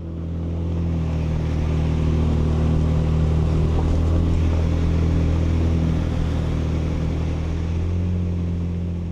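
Ford Ranger Raptor's engine running steadily as the truck drives, a low even drone with some road noise over it.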